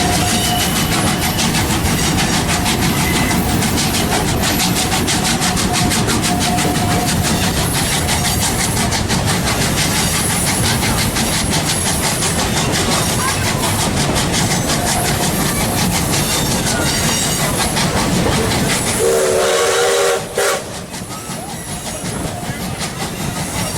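Steam excursion train rolling along, heard from on board: a steady rumble with rapid clacking of wheels on rail joints. About 19 seconds in a short whistle blast sounds, and just after it the noise drops suddenly to a lower level.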